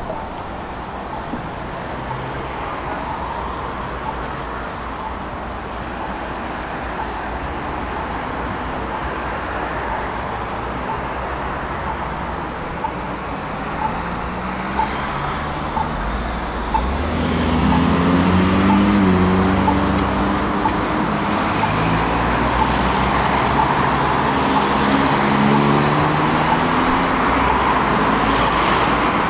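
Tram in motion: a steady running noise with a regular light ticking. About halfway through it gets louder, with low droning tones that rise and fall in pitch.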